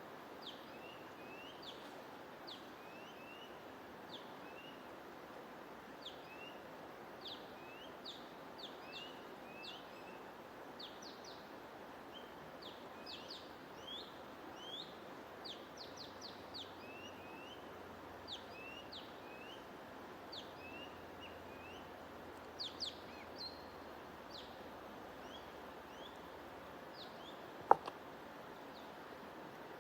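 Many small birds chirping in quick short calls, some rising and some falling, over a steady rushing noise like flowing water; the chirping thins out near the end. A single sharp click near the end stands out as the loudest sound.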